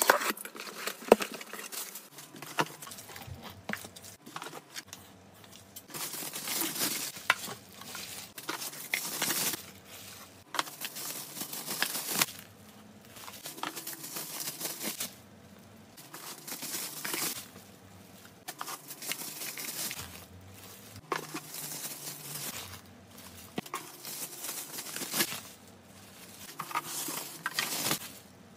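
Bubble wrap crinkling and rustling in repeated bursts of a second or two as wrapped plastic storage containers are handled, with a few light clicks.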